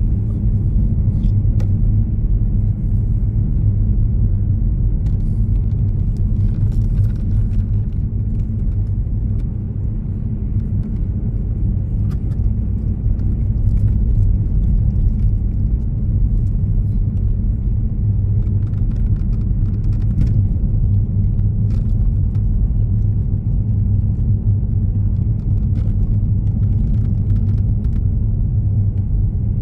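Steady low rumble of a moving road vehicle heard from inside: engine and tyre noise while driving along.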